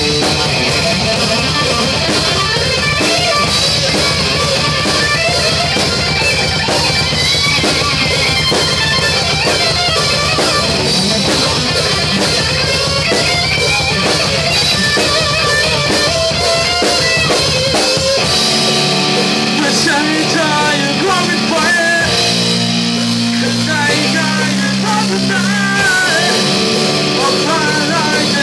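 Small rock band playing live: distorted electric guitar and drum kit together, loud and dense. About eighteen seconds in the band drops into a lighter section with clearer held low notes and a wavering melody line above them.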